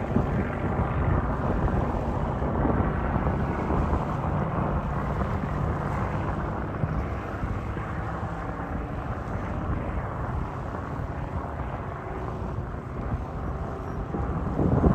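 Supermarine Spitfire's V12 piston engine running overhead as it flies aerobatics, a steady rumble over wind on the microphone.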